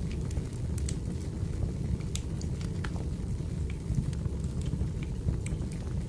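Firewood burning and crackling: a steady low rush with irregular sharp pops and snaps scattered through it.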